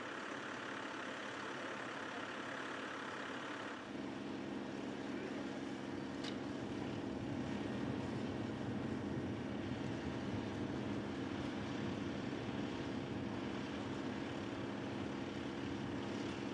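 A steady hiss gives way, about four seconds in, to the steady hum of a fire engine running beside a hose line at a grass fire.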